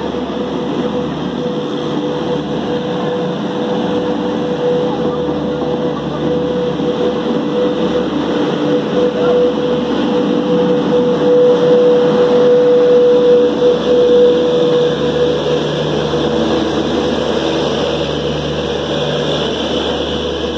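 WAP-5 electric locomotive and its passenger coaches rolling past along the platform as the train pulls in: a steady rumble of wheels on rail with a steady whine that is loudest about halfway through and fades about two-thirds of the way in.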